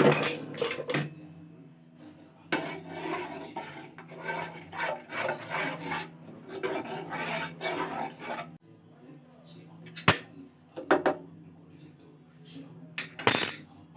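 Metal ladle stirring and scraping milk in an aluminium pot, with a few sharp clinks of the ladle against the pot near the end.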